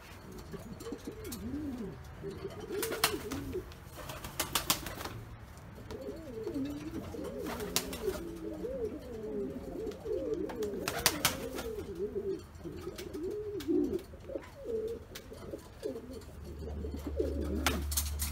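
Buchón pouter pigeons cooing over and over in low, wavering calls, with a few sharp clacks in between.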